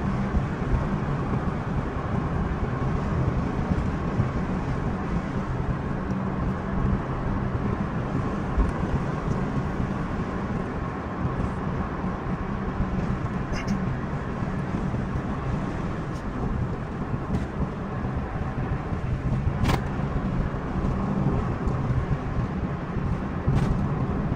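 Steady road and engine noise inside a moving car's cabin, a constant rumble with a low drone, with a single sharp click a few seconds before the end.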